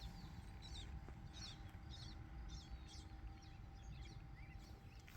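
A small bird chirping faintly, a series of short high notes about twice a second.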